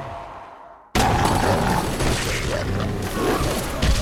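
A low rumble fades into a brief silent gap. About a second in, a sudden loud, dense din of action-film sound effects cuts in, with rapid sharp cracks and booms, and carries on.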